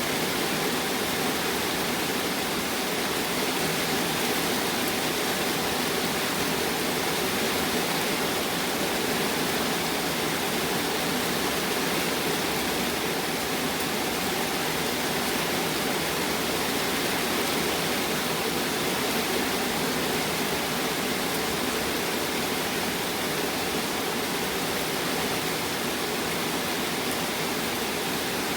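Thunderstorm rain falling steadily, an even, unbroken hiss with no thunder.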